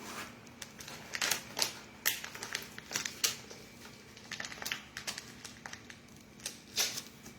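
Plastic packaging crinkling and rustling in irregular short bursts as a packaged sofa cover is handled.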